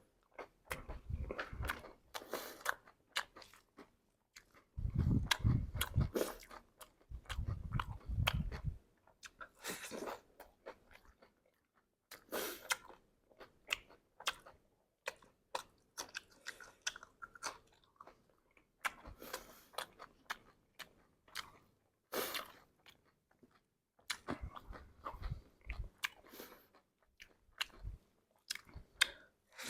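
Close-up chewing and crunching of chatpate (crisp puffed rice and sev with raw vegetables), irregular crackling bites and mouth sounds, with louder, heavier stretches about five and eight seconds in.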